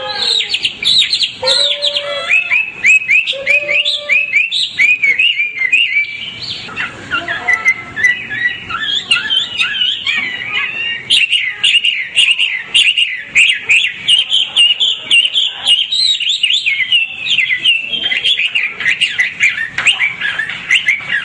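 White-rumped shama singing a fast, unbroken run of varied chirps, trills and whistles, with a few lower whistled notes early on.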